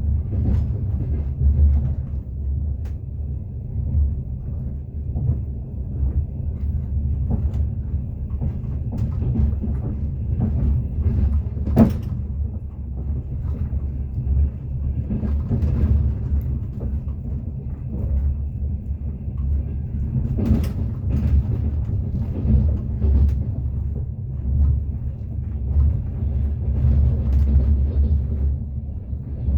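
Rumble of a moving train heard from inside the carriage, with irregular knocks and rattles from the wheels and the car, the sharpest about twelve and twenty seconds in.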